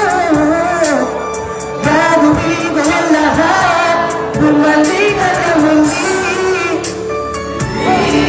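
A song: a high singing voice carrying a melody over a backing track with a steady beat.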